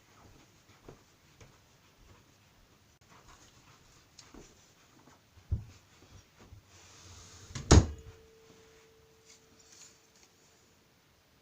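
Drill bits and tools being handled: faint clicks and rustling, a knock about five and a half seconds in, then a loud sharp metal knock near eight seconds that leaves a steady ringing tone for about three seconds.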